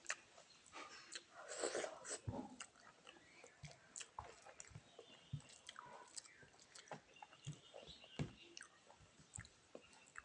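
Close-miked mouth eating sounds: irregular chewing with soft wet smacks and clicks of the lips and tongue.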